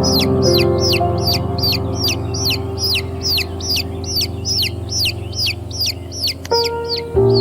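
Baby chicks peeping steadily, about three high, downward-sliding peeps a second, over soft sustained music chords.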